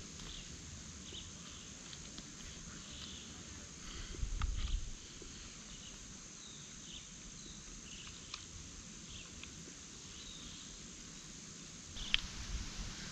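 Steady outdoor insect buzzing with scattered short high chirps. About four seconds in, a short low rumble of wind on the microphone, and a few faint sharp clicks near the end.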